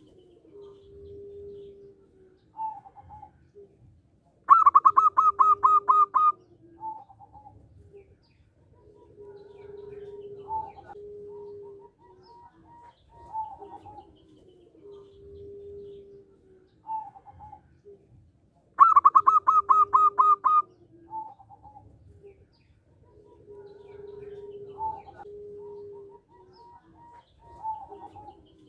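Zebra dove (perkutut) singing: twice a loud, rapid run of about ten clipped notes lasting about two seconds, with softer, lower drawn-out coos and short notes repeating in between.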